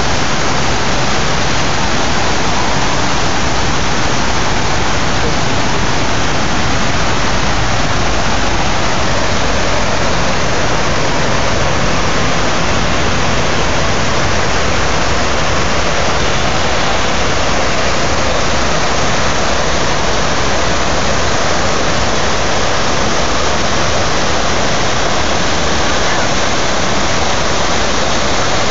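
Water pouring down the walls of the 9/11 Memorial's sunken reflecting pool, a steady, loud rushing of the man-made waterfall.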